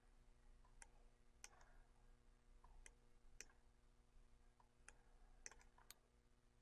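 Near silence: a faint low hum of room tone, with a few short, faint clicks scattered irregularly through it.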